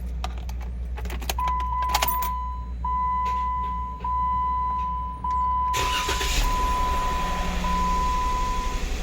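Jeep Wrangler's warning chime sounding as a long tone that repeats about every second, over the low steady hum of the vehicle. There are a few clicks near the start, and a hissing rush of noise comes on about six seconds in.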